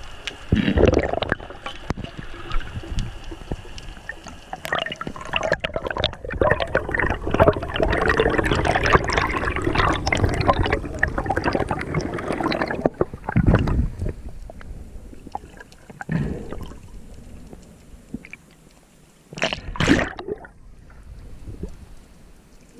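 Sea water splashing and gurgling, heavy and churning for about the first dozen seconds, then quieter with a few separate splashes near the end.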